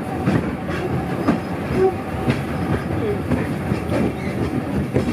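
Hong Kong Peak Tram funicular car running along its track, heard from inside the car: a steady rumble with frequent, irregular clacks and knocks from the wheels and car.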